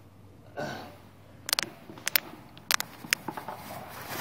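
Handling noise from a phone being moved around: a short breathy sound about half a second in, then a handful of sharp clicks and knocks.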